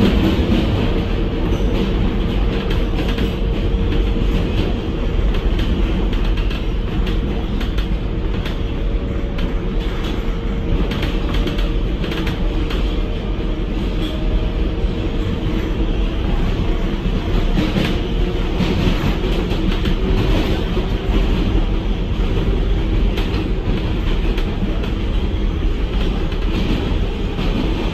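New York City subway train running on the track: a loud, steady rumble and rattle of wheels on rail, with a faint steady tone under it.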